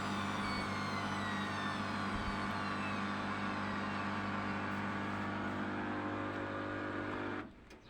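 Candy GCY1042D washing machine winding down from its spin cycle: a steady motor hum under a whine that falls slowly in pitch as the drum slows, then cuts off suddenly near the end.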